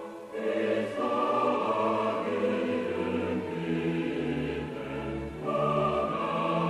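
A choir singing a Christmas hymn in held, sustained notes. A new phrase begins about half a second in and another about five and a half seconds in.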